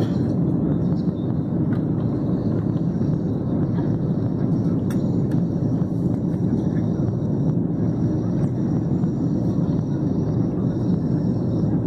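Jet airliner cabin noise heard from a window seat: the engines and rushing air make a steady, even low drone that does not change.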